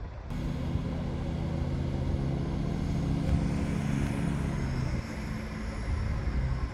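Diesel multiple unit, a CrossCountry Class 170 Turbostar, running into the platform with a steady underfloor diesel engine note over the rumble of the train. The engine note fades about five seconds in as the train slows.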